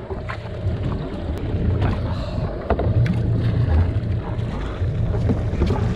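Wind rumbling on the microphone over open sea, with a few light knocks as gear is handled.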